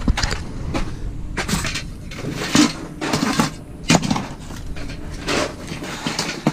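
Scrap metal being handled and unloaded: irregular clanks and knocks, one sharp bang about four seconds in, over a low rumble.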